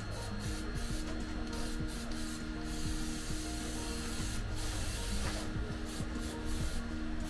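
Background music carrying a simple melody over a steady rubbing, hissing noise.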